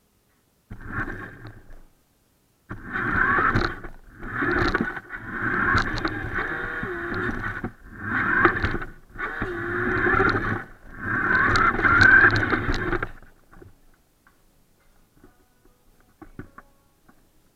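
Small electric motor and gears of a toy radio-controlled car whirring in about seven spurts of one to two seconds, the pitch sliding as it speeds up and slows. The whirring stops about three-quarters of the way in, leaving only a few faint clicks as the car is handled.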